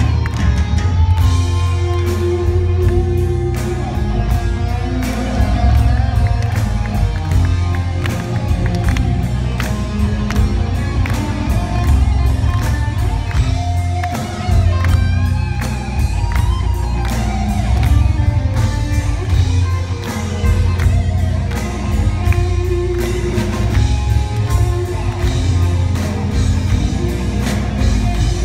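Progressive metal band playing live, with distorted electric guitars, bass and busy drumming, heard from the audience with a heavy low end.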